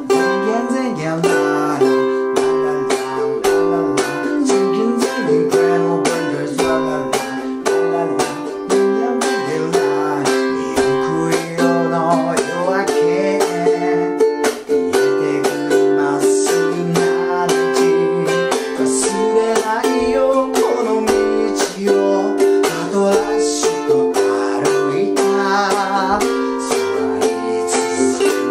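A man singing in Japanese while strumming a ukulele in a brisk eight-beat rhythm, with muted chop strokes (cutting) mixed into the strum.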